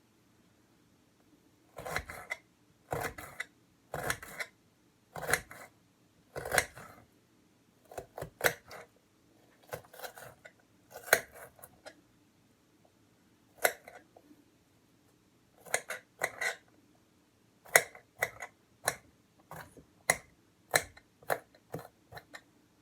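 Knife cutting an onion on a cutting board: irregular chopping strokes, some single and some in quick runs of two or three.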